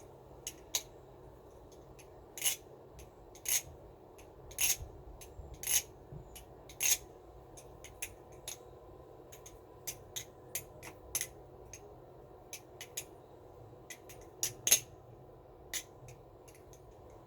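Balisong trainer with 6061 aluminium channel handles, tang pins and a 410 steel trainer blade being flipped, its handles and blade clacking together sharply as it opens and closes. Five loud clacks come about a second apart in the first seven seconds, then a run of lighter ticks, with a loud pair about three-quarters of the way through.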